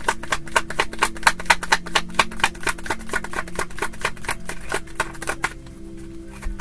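A tarot deck being shuffled by hand: a rapid, even run of card slaps and clicks, about six a second, that thins out and fades about five and a half seconds in.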